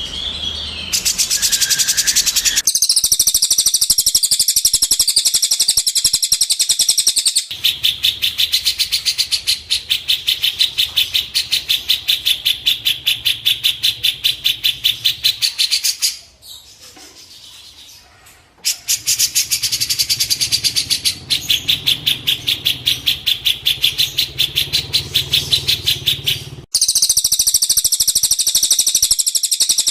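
Songbird recording used as masteran (tutor song for caged birds): long trains of rapid, evenly repeated high chirps. The trains cut off abruptly and restart several times, with a short quieter break about halfway through.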